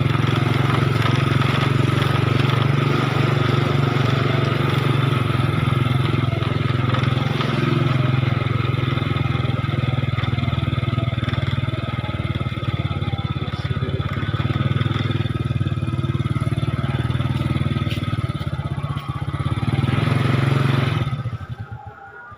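Motorcycle engine running steadily while riding, with a constant low drone and road noise, which fades out sharply near the end.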